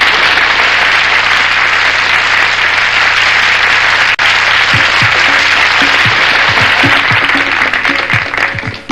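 Studio audience applauding. About halfway through, the low notes of the song's intro start under the applause, which dies away near the end as the music takes over.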